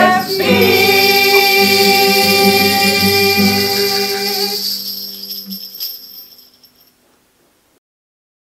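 The last held chord of a sung Christmas pop song, voices and backing music with jingling percussion, dying away over about six seconds.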